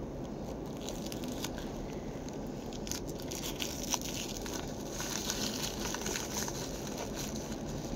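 Plastic wrapping on a book being crinkled and torn open by hand, with fingernails rather than scissors. The rustling crackles grow busier about three seconds in.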